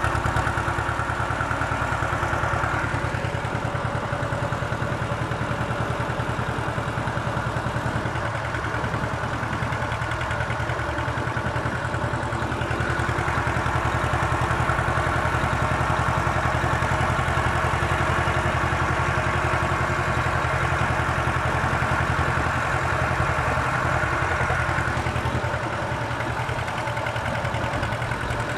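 Zetor 25A tractor's two-cylinder diesel engine running steadily while the tractor plows snow with its front blade, heard up close from the driver's seat.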